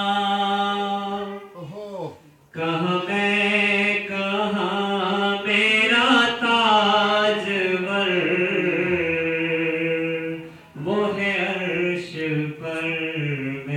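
A man singing a naat, Urdu devotional praise poetry, solo and unaccompanied, in long held notes that waver and glide in pitch. He breaks off briefly about two seconds in and again near eleven seconds.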